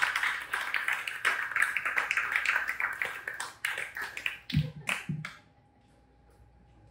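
Small audience applauding, the claps thinning out and stopping about five seconds in.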